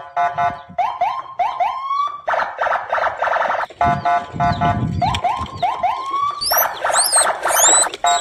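Electronic alarm siren cycling through sets of quick rising whoops and blocks of fast pulsing beeps, like a car alarm. Short high chirps come in over it in the second half.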